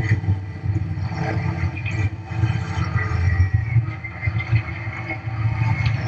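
Brush-clearing machine's engine running steadily under load, a deep rumble heard from inside the cab, with occasional knocks and clatter.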